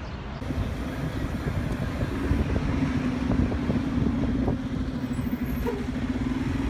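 Road traffic on a city street: a motor vehicle running with a steady low hum over a dense rumble.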